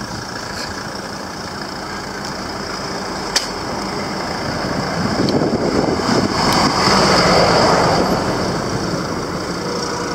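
Motor vehicle engines running in road traffic. One vehicle grows louder between about five and eight seconds in as it passes close by, then fades. There is a single sharp click about three seconds in.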